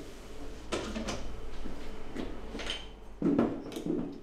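Knocks and clatter from behind a bar as a bottle of juice is fetched from an under-counter cabinet and set down: a cabinet door opening and closing and glass clinking, several separate knocks with the loudest about three seconds in.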